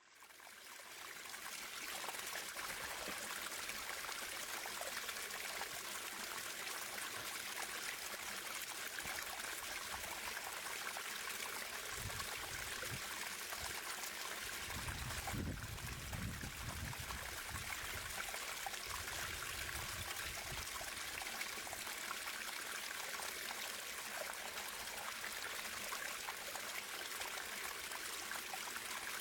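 Running water in a natural stream, flowing and trickling steadily. It fades in over the first couple of seconds, and a low rumble comes and goes about halfway through.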